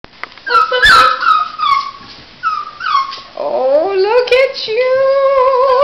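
Chocolate Labrador puppies, about five and a half weeks old, whining and yipping in short high falling cries, then a rising howl that settles into one long held whine near the end. A sharp knock comes about a second in.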